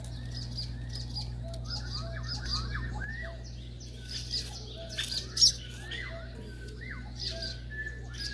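Several birds chirping and calling in quick, repeated short notes over a low steady hum. A single brief sharp scrape stands out about five seconds in.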